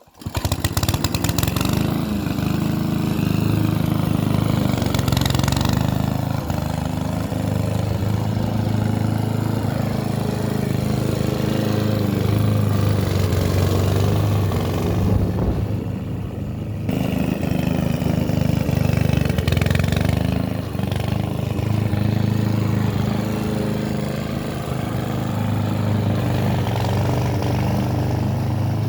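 Hyundai HY145V petrol lawn mower engine catching right at the start and then running steadily at working speed. It sounds briefly muffled about halfway through.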